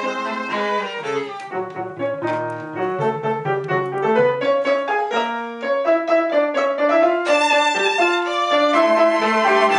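Violin, cello and piano trio playing a classical fantasia on a Ukrainian folk song, the violin carrying a sustained melody over piano chords, growing louder about halfway through.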